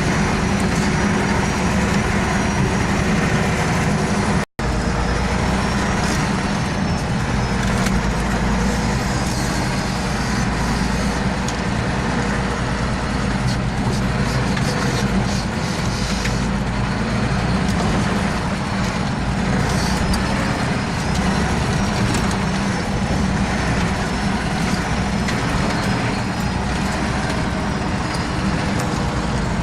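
Off-road vehicle engine running steadily under load while driving through forest, with scattered cracks and scrapes of branches and brush against the vehicle. The sound cuts out for an instant about four and a half seconds in.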